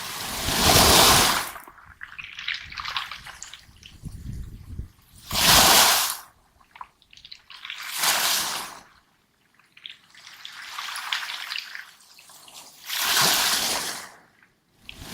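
Small waves breaking on a pebble beach, each surge followed by the trickling rattle of water draining back through the stones; four loud surges a few seconds apart.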